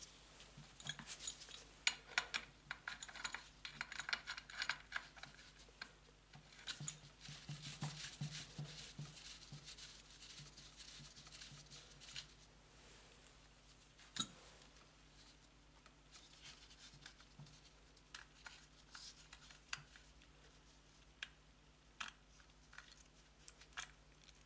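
Faint metallic clicks and scrapes of a small wrench working the two small muffler nuts and washers off the studs of a Huter BS-45 chainsaw, with one sharper click about fourteen seconds in.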